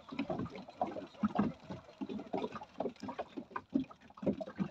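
Choppy sea water slapping and gurgling against the hull of a small boat at anchor, in short irregular splashes.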